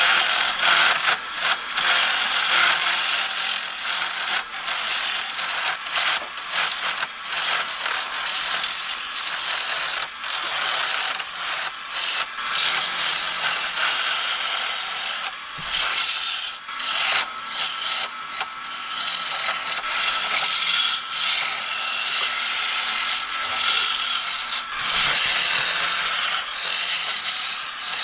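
Wood lathe turning an axe-handle blank as a hand-held turning chisel cuts into the spinning wood, throwing off shavings: a steady, loud scraping hiss broken by many short breaks.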